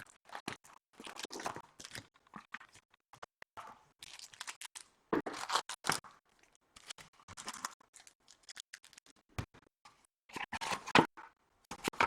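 Packaging of a sealed trading-card box being torn and crinkled open by hand: irregular tearing and crinkling bursts with short pauses between them.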